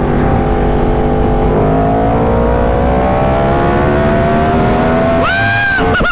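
Superbike's inline-four engine pulling hard at speed. Its pitch shifts once about a second and a half in, then rises slowly as it accelerates. Near the end a short high, steady tone with many overtones cuts in over it.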